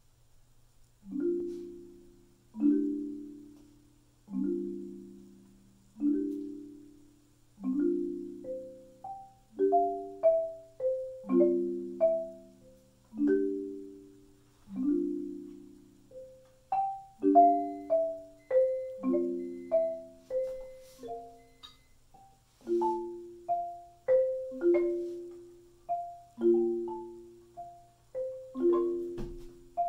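Solo marimba played with four yarn mallets: soft low chords struck about every second and a half, each ringing and dying away, beginning about a second in. From about nine seconds a higher melody line joins over the chords.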